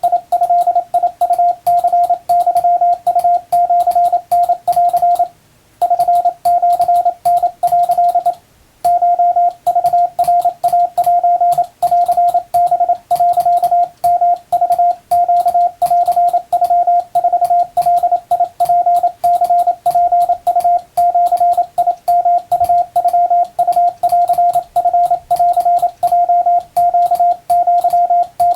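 Wabun (Japanese) Morse code in plain language: a single mid-pitched tone keyed on and off in quick dots and dashes, with clicks along with the keying. The sending breaks off briefly twice, about five and eight seconds in.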